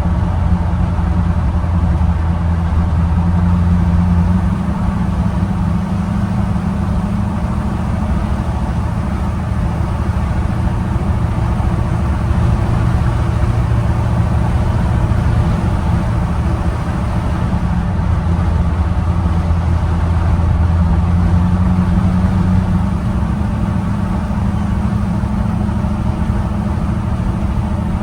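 1965 Chevy C10 pickup's small-block V8 running on the road, its engine note rising and falling with speed.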